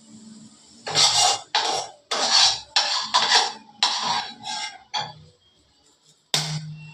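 Kitchen utensils scraping and clattering against cookware in a run of short, loud strokes, stopping briefly before one more stroke near the end.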